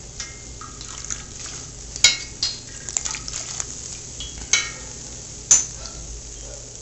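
A metal spoon clinks and scrapes against a pot of frying oil as a battered corn dog is lifted out, with a steady sizzle of hot oil underneath. There are about five sharp clinks.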